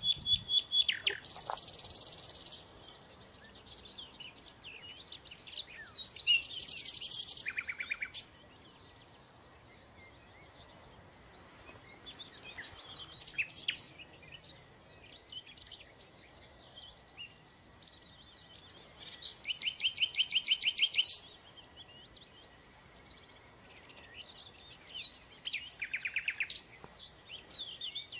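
Songbirds singing in short phrases a few seconds apart, one of them a rapid trill of repeated notes about twenty seconds in.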